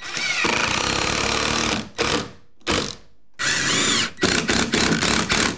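Cordless impact driver driving 2.5-inch screws through the door hinges and jamb into the wall framing: one long run, two short bursts, a second run, then several quick stop-start bursts near the end as a screw is tightened.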